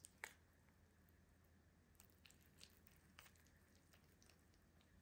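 Near silence, broken by a few faint, brief clicks and soft squishes of a metal spoon in a bowl of thick oat mixture.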